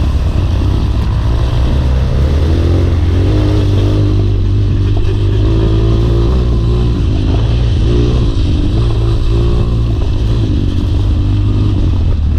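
Trail motorcycle engine running under way, its revs rising and falling, with a heavy low rumble.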